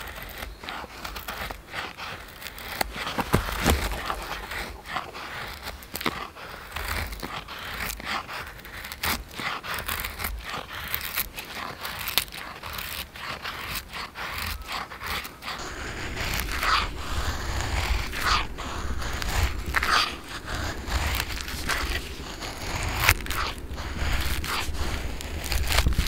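A knife blade shaving thin curls off a dry wooden stick to make a feather stick: repeated short scraping strokes, louder in the second half.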